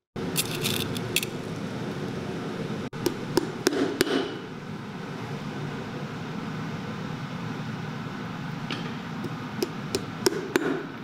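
Hammer strikes on heel nails in a stacked leather boot heel: a few light taps near the start, a cluster of firmer blows about three to four seconds in, and more taps near the end, over a steady background hum.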